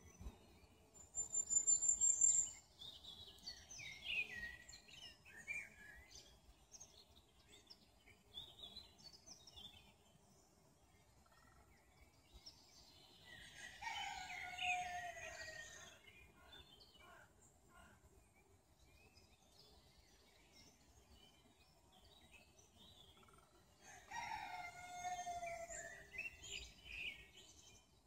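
A rooster crowing twice, midway and near the end, each crow about two seconds long and falling in pitch at its end. Small songbirds chirp and whistle throughout, loudest a high whistle near the start.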